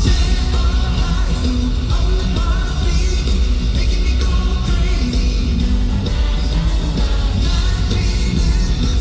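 Live pop-rock band music with heavy bass and drums, sung vocals coming through in places.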